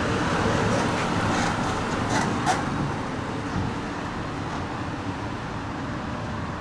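A car driving: steady road and engine noise with a low rumble.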